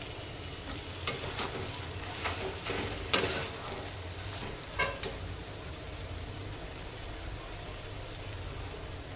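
A flat spatula stirring and scraping tomato-onion chutney in a metal kadhai over a low, steady sizzle. It knocks against the pan several times in the first five seconds, loudest about three seconds in, then only the sizzle goes on.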